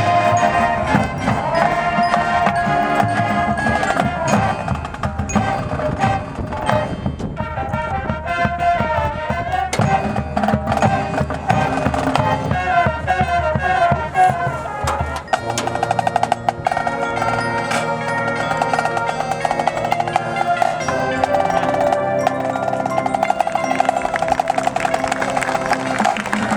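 High school marching band playing its field show, with the front ensemble's mallet percussion (marimba, glockenspiel, bells) standing out over the winds and drums. The low sustained notes drop out about halfway, leaving a quick repeating figure in the upper instruments.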